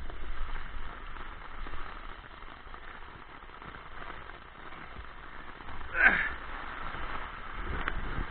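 Steady hiss of rain with a low rumble underneath, and a short falling whistle-like sound about six seconds in.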